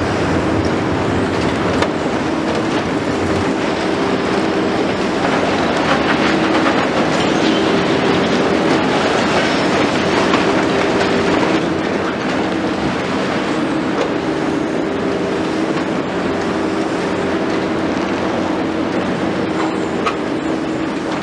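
Liebherr 954 long-front demolition excavator at work. Its six-cylinder diesel and hydraulics run steadily, with a low whine that comes and goes, over a constant clatter of concrete being crushed and rubble falling, broken by a few sharper knocks.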